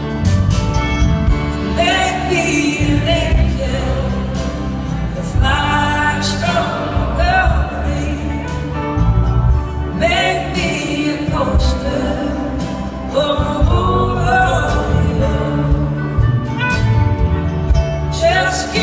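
A live band playing a slow blues-rock song through a concert PA, with acoustic and electric guitars and an organ, and a melodic lead line that bends in pitch.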